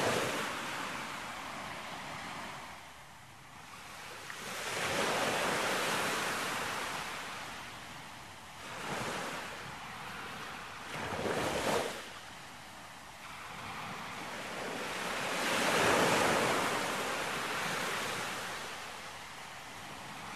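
Surf washing onto a sandy beach, rising and falling in several slow swells, with some wind on the microphone.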